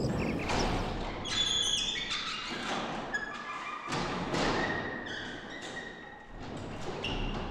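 Soft instrumental music: notes struck one after another, each ringing on over held tones.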